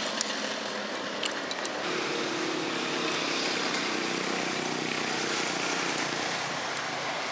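Street traffic: a motor vehicle's engine running, a steady hum that grows stronger in the middle, over a general road-noise hiss. A few light clinks of a metal spoon and fork against a bowl come early, about a second in.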